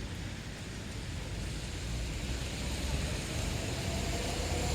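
Road traffic on a wet road: a steady hiss of tyres on wet asphalt over a low engine rumble. It slowly grows louder as a vehicle approaches, with a faint engine tone coming in during the second half.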